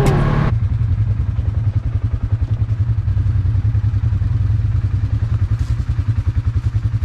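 ATV engine idling while stopped, a steady rumble with a rapid, even pulse.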